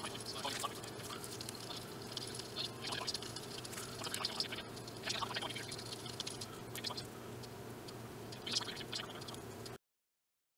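Hands pressing and smoothing glued leather pieces together: scattered short crackling handling noises over a steady low hum. The sound cuts off abruptly shortly before the end.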